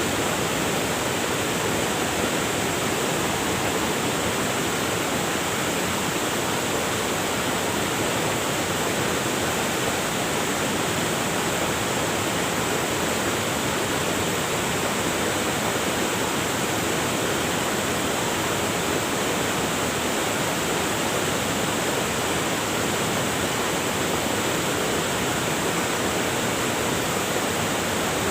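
River water rushing over rocks: a steady, even rush with no breaks or separate splashes.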